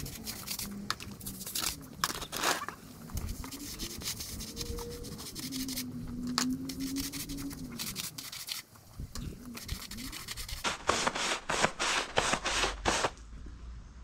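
Stiff brush scrubbing sodium hypochlorite solution into patio slabs by hand, with a rasping stroke every second or so and a quick run of about seven strokes near the end.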